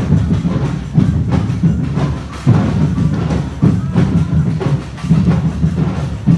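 Drums playing a steady beat: heavy low strokes about once a second, with lighter, faster drum hits filling in between.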